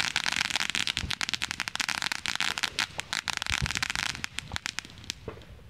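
Ground firework spraying sparks, a dense crackling with a hiss behind it. About four seconds in it thins to scattered pops and dies out near the end.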